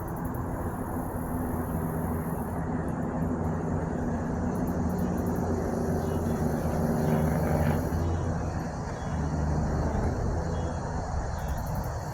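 A motor vehicle's engine running, a steady low drone that swells in the middle and eases off a little later.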